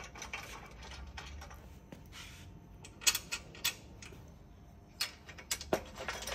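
Small metal clicks and clinks of bolts, washers and nylock nuts being fitted by hand into a steel bike-carrier channel, with a few sharper clicks about three seconds in and several more near the end.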